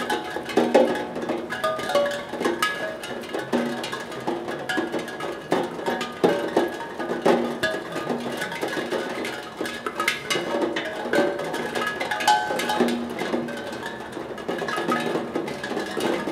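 Raindrops striking the tongues of a steel tongue drum, sounding ringing notes at many different pitches in a random, irregular patter, some strikes louder than others.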